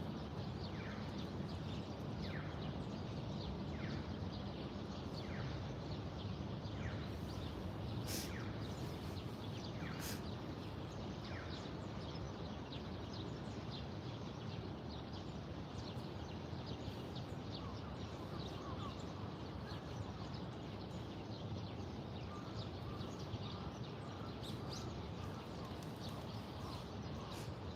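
Birds chirping over a steady low background rumble. For the first ten seconds or so one bird repeats a short falling call about every second and a half, while brief high chirps come and go throughout.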